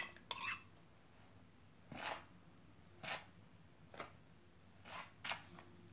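Faint scrapes and rustles of a utensil stirring a wet dough mixture into flour and butter crumbs in a plastic bowl, about once a second.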